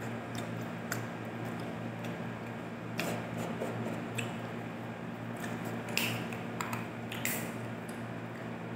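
Close-up eating sounds of someone eating rice and fish by hand: fingers sucked and licked, with a few wet lip smacks and chewing. A steady low hum runs underneath.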